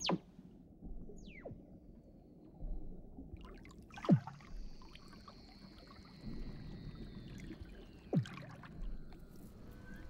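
Weddell seals calling underwater: sharp chirps that sweep steeply down in pitch near the start, about a second in, about four seconds in (the loudest) and near eight seconds. Between about four and eight seconds a long high whistle slowly falls in pitch, over a low steady underwater rumble.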